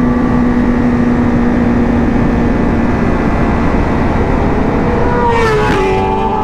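Motorcycle engine running at a steady pace under a rush of wind noise, its note sinking slowly, then rising and dropping to a new pitch near the end.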